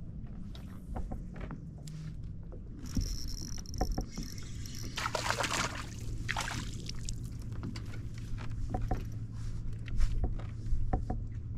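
Kayak fishing sounds: scattered small knocks of tackle against the kayak's hull and a short high whir of a fishing reel about three seconds in. A loud hiss follows about five seconds in, and a low steady hum starts just before it.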